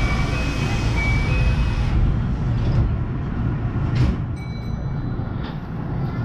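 Electric commuter train standing at a station, its equipment giving a steady low hum. Short electronic beeping tones sound near the start and again from about four seconds in, and there are a few brief knocks.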